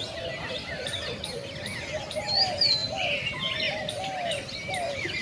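A chorus of many birds chirping and calling at once, short arching notes overlapping continuously, some low and some high and shrill.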